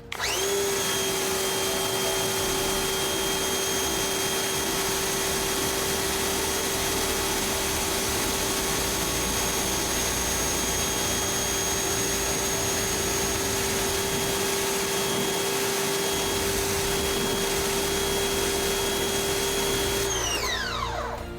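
Pressure washer running for about twenty seconds: a steady motor whine over the hiss of the water jet. It starts up sharply and winds down with a falling whine near the end.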